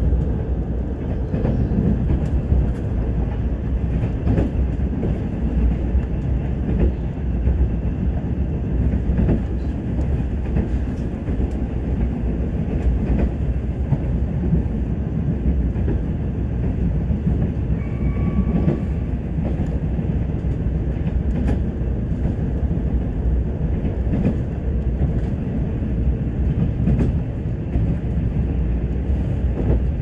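Mugunghwa-ho passenger train running along the line: a steady, even rumble of the train on the rails, with a short faint high tone about eighteen seconds in.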